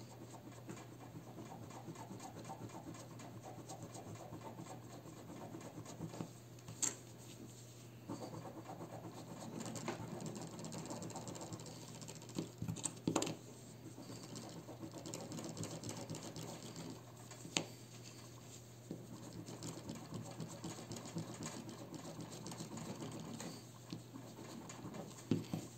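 Soft rubber eraser scrubbing a tarnished silver 100-franc coin, in stretches of rapid scratchy rubbing strokes with short pauses, to lift the black tarnish. A few short clicks come between the stretches.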